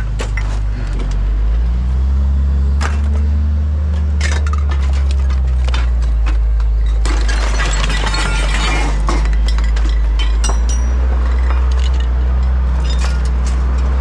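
A vehicle engine idling with a steady low rumble, while hard objects clink and clatter against each other, with a busy rattling clatter about seven to nine seconds in.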